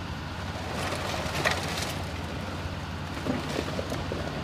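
Diesel excavator running steadily while it works a pile of demolition debris, with the crackling and snapping of broken lumber, loudest about a second and a half in and again near the end.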